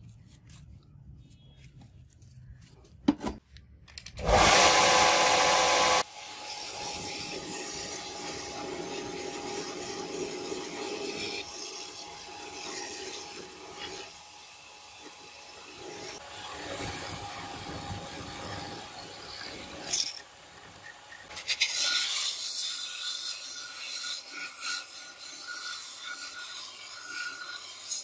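Bench belt sander running with a wooden axe handle pressed against its abrasive belt, the wood rasping as it is ground to shape. After a quiet start with a sharp click, a short loud burst of noise comes about four seconds in, and the sanding grows louder and hissier in the last third.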